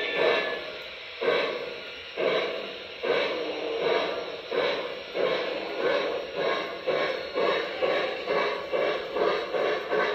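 Steam locomotive chuffing from a model train's sound system, the beats quickening from about one a second to about three a second as it pulls away and gathers speed.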